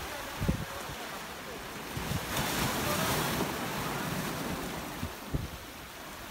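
Sea waves washing against rocks, one wash swelling up about two seconds in and falling away again, with wind buffeting the microphone in a couple of low thumps.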